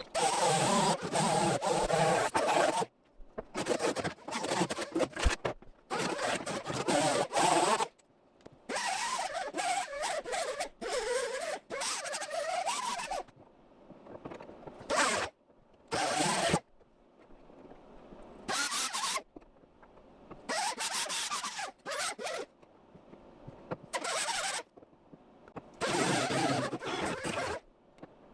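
MIG welder laying tacks and short beads on a car's sheet-metal quarter panel: about ten crackling arc bursts of half a second to a few seconds each, starting and stopping abruptly, with pauses between.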